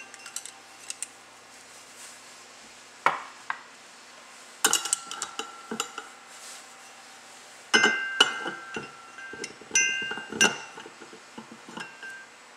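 Metal parts of a Ski-Doo QRS driven clutch (the helix, spring and spring compressor tool pieces) clinking and knocking together as they are handled on the bench. There are about a dozen sharp clinks with quiet gaps between them; the loudest, about eight seconds in and again about two seconds later, leave a short bell-like ring from the metal.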